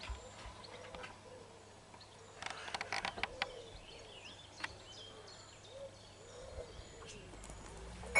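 Quiet countryside birdsong: small birds chirping high, with a low call repeated on and off, and a brief scratchy burst about two and a half seconds in.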